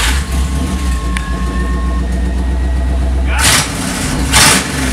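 Chevrolet K5 Blazer engine idling just after start-up, exhaust running with the mufflers removed: a deep, steady note. Two short louder bursts come near the end.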